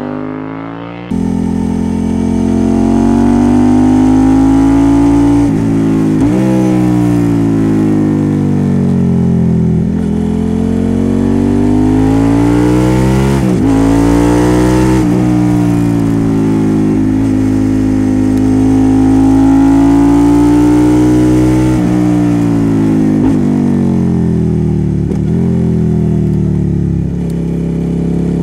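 Suzuki SV650X's 645 cc V-twin running loud through a Leo Vince slip-on exhaust with the baffle left out, the note rising and falling in pitch as the bike accelerates and rolls off through the bends. The note breaks off sharply and jumps in pitch several times.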